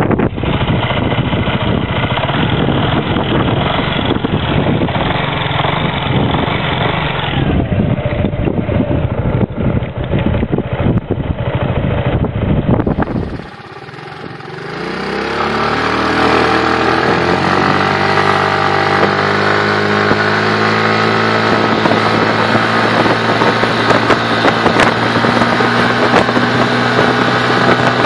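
Yamaha Majesty 250 scooter under way with heavy wind noise on the microphone over the engine. About halfway through, after a brief dip, the engine's pitch rises for a few seconds, then holds steady while the scooter keeps gaining speed, as its automatic CVT keeps engine revs constant.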